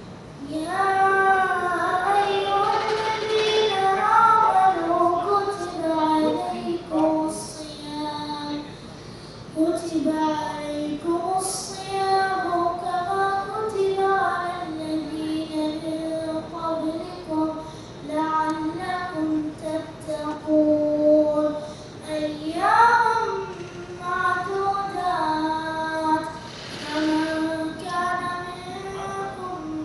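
A boy chanting solo in a melodic, ornamented voice, with long held notes and short pauses for breath between phrases.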